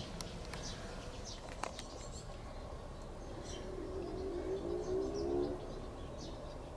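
Outdoor ambience of birds: scattered short high chirps, and a low cooing call for about two seconds in the middle, over a steady low rumble.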